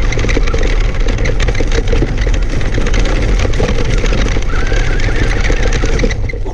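Traxxas Stampede RC monster truck driving fast over gravel, heard from a camera mounted on the truck: stones crunch and clatter against the tyres and chassis over the motor's whine, which rises about four and a half seconds in. The noise drops away briefly near the end.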